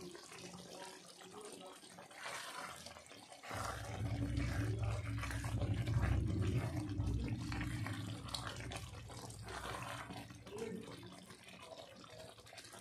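Thick aloo baingan curry bubbling in a kadai while it is stirred with a silicone spatula. About three and a half seconds in, a steady low rumble sets in and stays.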